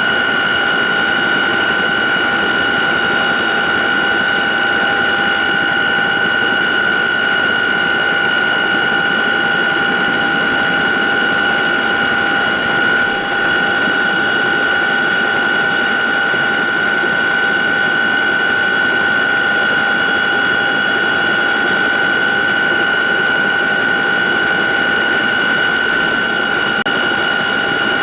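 Cabin noise of a CH-47J Chinook twin-rotor helicopter running, heard from inside: a loud, high steady whine over a dense rushing noise, unchanging throughout.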